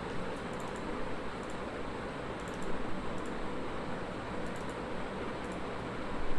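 Steady background hiss, with a few faint, sharp clicks scattered through it: mouse clicks as words on the screen are highlighted.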